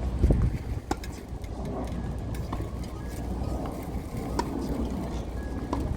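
Tennis balls being struck and bouncing: sharp pops every second or two over a steady low rumble.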